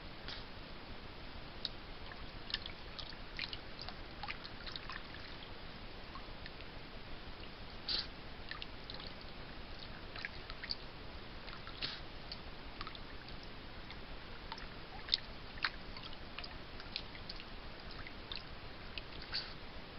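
Fisher chewing and tearing at a trapped beaver's carcass: irregular wet clicks and crunches, a few a second, over the steady hiss of a trail camera's microphone.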